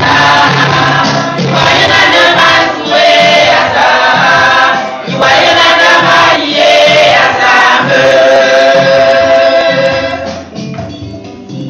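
Gospel singing in church: a woman's voice amplified through a handheld microphone leading a group of singers, over a low accompaniment with a steady beat. The singing falls away about ten seconds in.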